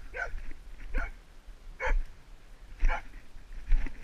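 A hunting dog barking repeatedly, about one bark a second, five barks in all.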